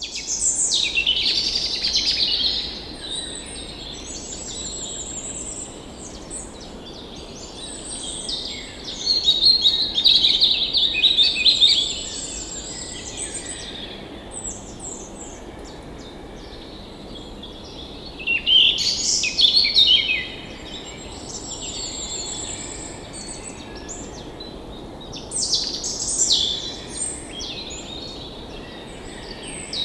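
Wild songbirds singing and chirping in repeated phrases, with louder bursts about every six to eight seconds, over a steady low hiss of background noise.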